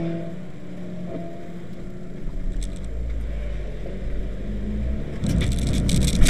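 Car engine running as the car is driven on a race track, heard from inside the cabin, its note shifting. A low rumble comes in about two seconds in, and from about five seconds in a rough hiss with crackles joins it.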